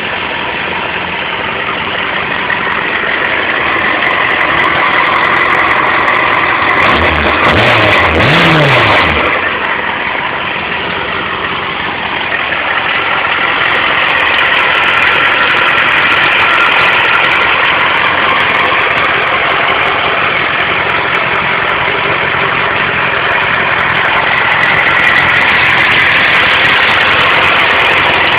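Yamaha Fazer 600 inline-four sportbike engine with its stock exhaust, idling steadily, with two quick throttle blips about seven to nine seconds in.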